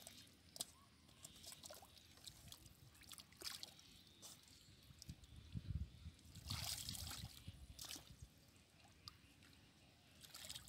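Faint, intermittent sloshing and dripping of muddy water as hands grope through a shallow mud pool, with a louder splashy stretch for about a second past the middle.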